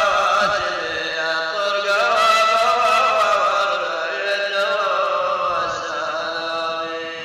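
A voice singing a slow traditional Arabic folk chant from the Umluj region, in long drawn-out phrases with wavering, ornamented notes.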